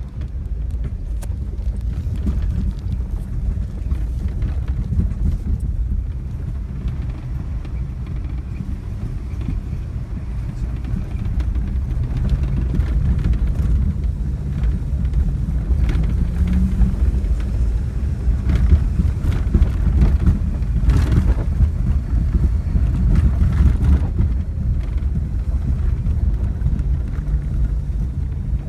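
Low, steady engine and tyre rumble heard from inside a vehicle's cabin as it drives along a bumpy dirt road, with occasional knocks and rattles from the bumps.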